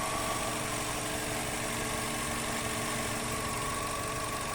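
Toyota Etios engine idling steadily.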